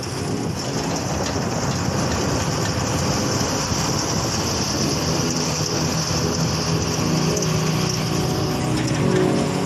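Steady rush of wind and road noise from a vehicle driving along a paved road, with its engine running underneath. Background music comes back in near the end.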